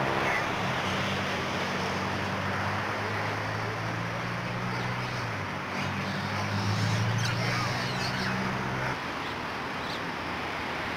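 A motor vehicle's engine running steadily at idle over outdoor background noise, with the engine hum cutting off suddenly about nine seconds in.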